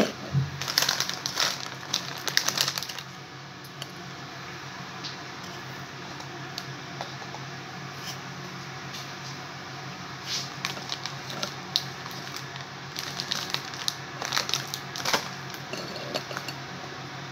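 Light clicks and taps of sandwich biscuits being handled and shifted on a ceramic plate, in two spells, the first at the start and the second about ten seconds in. A low steady hum runs under it.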